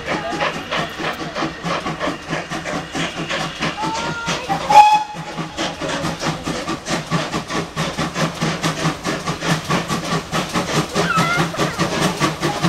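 Steam locomotive exhaust beating steadily, about four beats a second, as a GWR pannier tank works a train past and away. About five seconds in there is a short, loud toot on a steam whistle.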